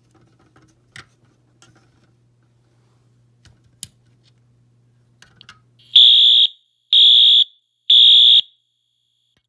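Fire alarm sounder giving three short blasts about a second apart, a temporal-three pattern: the walk-test signal that a pull station has been activated. A sharp click comes a couple of seconds before the blasts.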